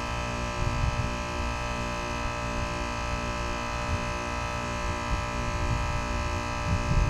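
Steady multi-tone hum over a low, uneven rumble from the outdoor unit of a 2025 Carrier Sentry heat pump running through a defrost cycle.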